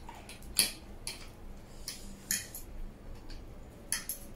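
Metal forks and spoons clinking and scraping against food trays while noodles are eaten, a handful of short sharp clinks spaced irregularly.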